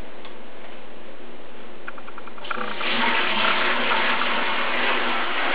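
Water being poured from a steel pot into a watering bucket: a steady splashing pour that grows louder about two and a half seconds in.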